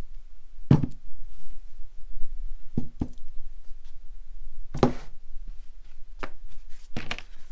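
Weights and wooden blocks being lifted off a glued leather wallet and set down on a workbench: about six sharp knocks spread over several seconds, over a steady low hum.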